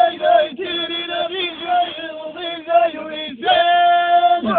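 A man singing alone in a chanting style, drawing out long held notes; the longest steady note comes near the end.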